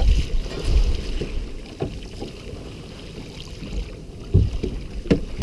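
Wind rumbling on the microphone and choppy water against a small aluminium boat, with a few short knocks from gear being handled over the side.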